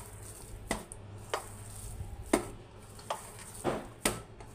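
Semolina dough being slapped down again and again into a stainless steel bowl to knead it: about six dull slaps at uneven intervals, the loudest about halfway through.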